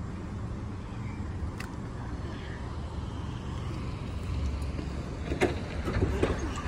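A steady low outdoor rumble, with a few thumps and knocks of bodies on vinyl gym crash mats, the loudest two near the end.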